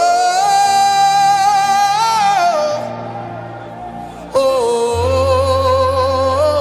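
Live gospel worship singing: a voice holds a long note with vibrato that rises slightly and falls away, then, after a short pause, a second long held note. A band with a bass line plays underneath.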